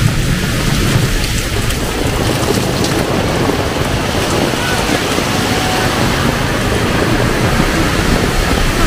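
Heavy rain pouring down in a dense, steady hiss, with a low rumble fading out in the first two seconds.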